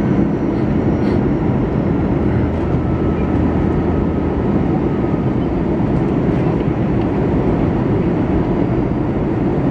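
Steady cabin noise inside an Airbus A320, heard from the first row: an even, low rumble of engines and rushing air.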